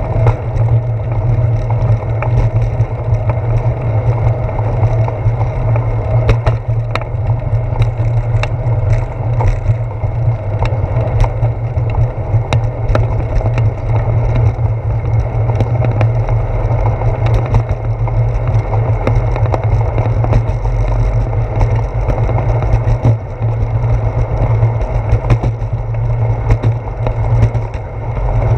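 Bicycle rolling along a concrete path, heard through a handlebar-mounted GoPro Hero 4: a steady low rumble of wind and road vibration with frequent small ticks and rattles.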